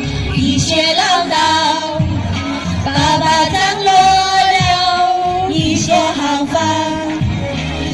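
A group of women singing a Chinese song together over instrumental accompaniment, amplified through stage microphones and PA.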